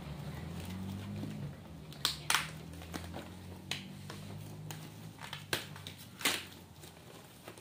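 Thin foam-plastic packing wrap being picked at and pulled open by hand, giving a handful of sharp crackles and crinkles. The loudest come about two seconds in and just after six seconds. A low hum sits underneath and fades out after about five seconds.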